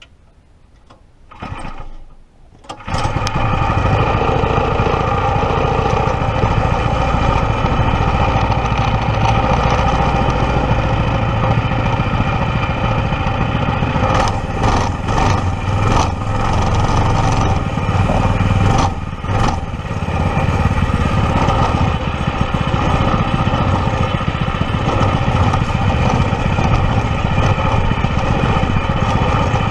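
Predator 212 single-cylinder four-stroke small engine starting: a short burst about a second and a half in, then it catches about three seconds in and keeps running steadily, with a few brief dips in the middle.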